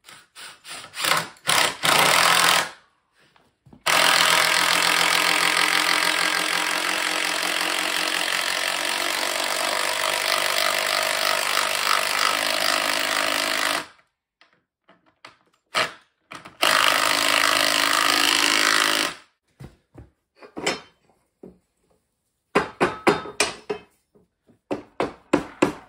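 Cordless impact driver hammering 6-inch by 1/4-inch lag screws into a wooden frame: a few short bursts, then one long run of about ten seconds, then another burst of a couple of seconds. Near the end comes a quick series of sharp knocks.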